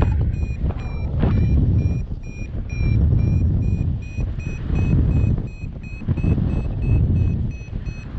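Paragliding variometer beeping about three times a second at a steady high pitch, the beeping that signals the glider is climbing. Under it, loud gusting wind rushes across the microphone, swelling and easing every second or two.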